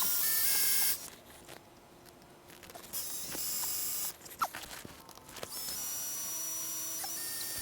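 Power drill running in short bursts, drilling a new mounting hole for the snowmobile's ice scratchers. There is a couple of seconds of running at the start, another burst about three seconds in, and steady running from about halfway through, with a few clicks between the bursts.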